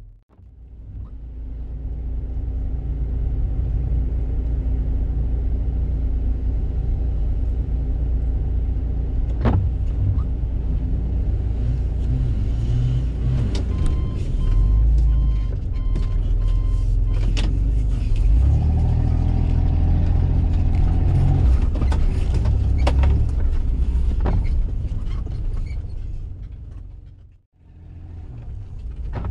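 Off-road 4x4 driving over a rough dirt track, heard from inside the cab: steady engine and tyre rumble with scattered knocks and rattles from the bumpy ground. A short run of faint beeps sounds about halfway through, and the sound fades out and back in near the end.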